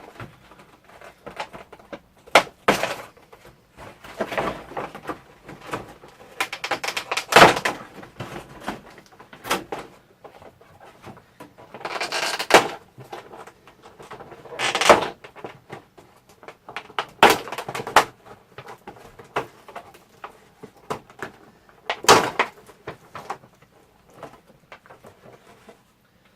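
Plastic packaging of a boxed figure being handled: irregular crinkles, clicks and knocks, with tape being pulled off the pieces. The loudest bursts come about seven, twelve and fifteen seconds in.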